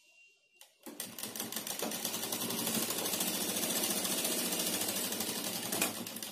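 Domestic sewing machine stitching a short seam: it starts about a second in, runs up to a steady rapid stitch rhythm, and slows near the end.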